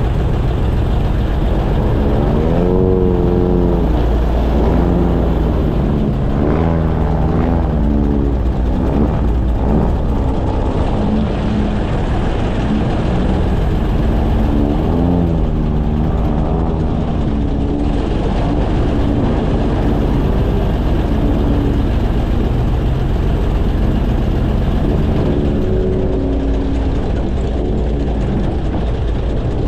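Airboat engine and propeller running at speed, a loud steady roar whose pitch rises and falls several times as the throttle changes.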